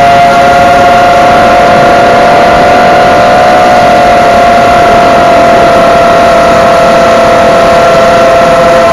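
Eachine Falcon 250 quadcopter's brushless motors and propellers whining steadily in flight, a cluster of close tones held at a fairly even throttle and sagging slightly in pitch toward the end, over a rush of prop wash. Very loud.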